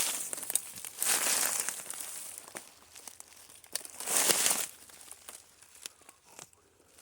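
Footsteps rustling and crunching through dry leaves and brush in a few irregular, slow bursts, the loudest about a second in and about four seconds in.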